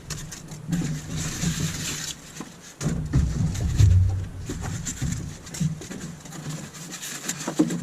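Styrofoam packing and a cardboard box being handled and pulled apart: irregular rubbing, scraping and rustling with small clicks, and heavier knocks about three to four seconds in.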